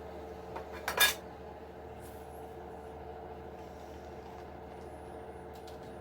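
A few light clicks and then one sharp clink about a second in, a small hard part or tool being handled while the RC truck is taken apart, over a steady low hum.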